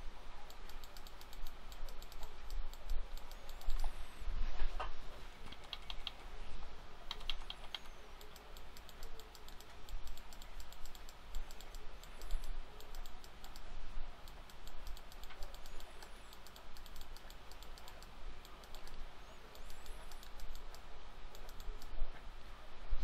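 Quick, irregular clicking and tapping of a computer keyboard and mouse, over a steady low mains hum.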